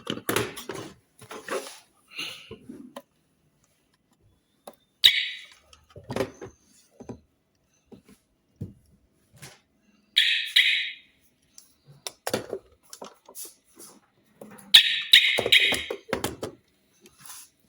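Short electronic chirps from wireless alarm hooter hardware being powered up and paired with the alarm panel: one about five seconds in, two near ten seconds, and a quick run of several near fifteen seconds. Between them come clicks and knocks from the units being handled.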